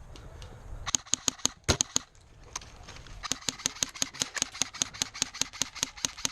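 Airsoft gun firing: a few single shots, then from about three seconds in a rapid, even string of sharp cracks at roughly eight shots a second.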